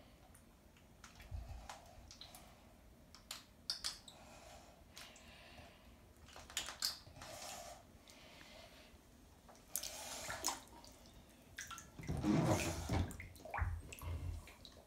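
Bathwater sloshing and splashing in a tub, loudest for about a second and a half near the end, with scattered light clicks and taps of small hands handling a plastic toy car.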